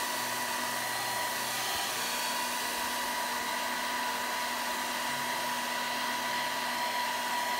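Nova mini 1400 W travel hair dryer running steadily, its airflow rushing over a steady motor whine.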